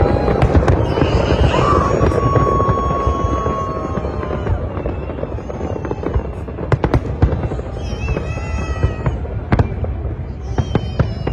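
Fireworks display: a dense barrage of crackling and booming shells, thinning out after about five seconds into separate sharp bangs and crackles.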